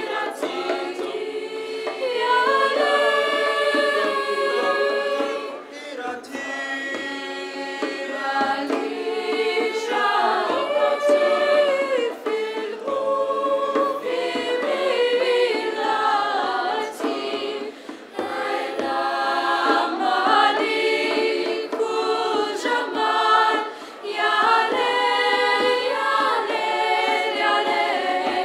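Youth choir of boys and girls singing an Arabic song, several voice parts sounding together in long held phrases with brief breaks between them.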